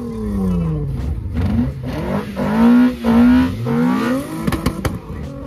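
VR6 engine revved hard through its exhaust in repeated blips, the pitch climbing and falling. It is held high for about a second near the middle, then drops away, with a few sharp cracks near the end.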